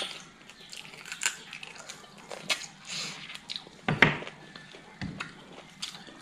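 Close-up eating sounds: a person biting and chewing chicken, with wet mouth clicks and smacks, and a single loud knock about four seconds in.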